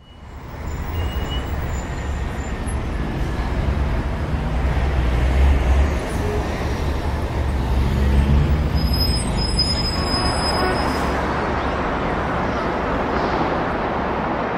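Steady low rumble and hiss of city traffic noise, fading in at the start.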